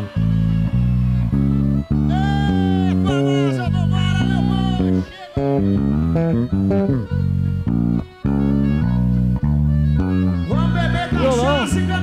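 Live band playing, with the electric bass guitar loud and up front in a steady run of short, picked low notes. A singing voice comes in over it about two seconds in and again near the end.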